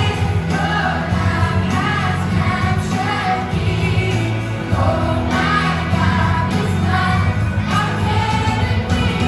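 A group of voices singing a song over musical accompaniment with sustained bass notes.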